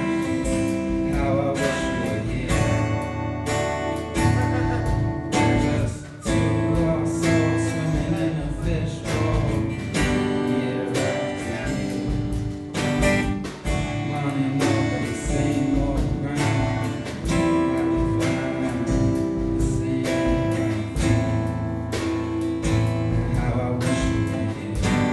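Live rock band playing: strummed acoustic guitar over bass guitar and a drum kit keeping a steady beat, with a brief drop in loudness about six seconds in.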